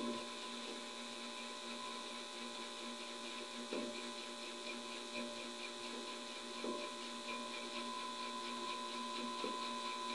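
Mini Tesla coil kit running: a steady electrical hum made of several fixed tones, with a few faint short bumps.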